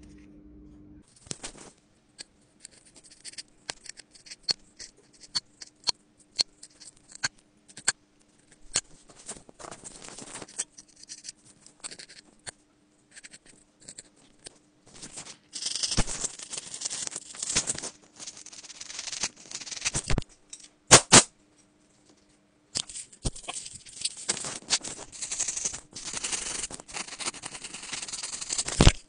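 Close-miked metal pick scraping and clicking along an iPhone's metal frame around the side buttons and mute switch, prising out lint and grime in irregular scratches and ticks. From about halfway through the scraping turns dense and continuous, with a stiff brush scrubbing the frame edge near the end.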